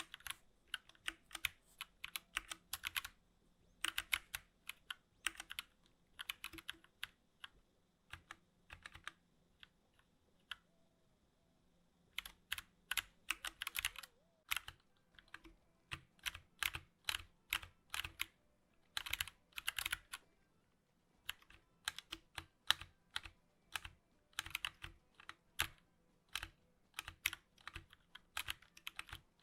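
Typing on a 60% mechanical keyboard: quick runs of key clicks and clacks. There is a pause of a few seconds in the middle with only scattered keystrokes.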